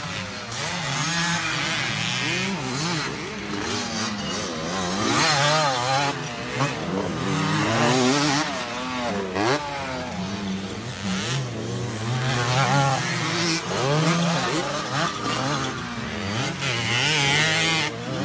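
Several motocross dirt bikes racing, their engines revving up and down, with pitches rising and falling and overlapping one another.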